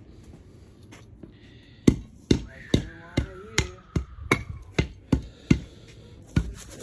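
Steel hand tamper pounding backfilled soil, a steady run of thuds about two to three a second starting about two seconds in: the backfill being compacted before the concrete patch goes in.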